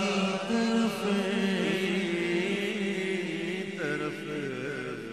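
Unaccompanied naat recitation: a male lead voice holding long, wavering sung notes over a steady hum of backing male voices.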